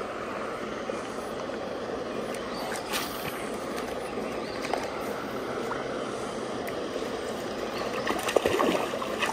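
Steady rush of fast-flowing floodwater, with a few brief louder sounds near the end.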